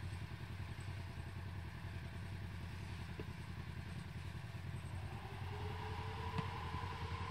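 Side-by-side UTV engine running at low revs as it crawls over boulders. About five seconds in, a whine rises in pitch and holds as throttle is added, and a single sharp knock sounds near the end as a front tyre climbs a rock.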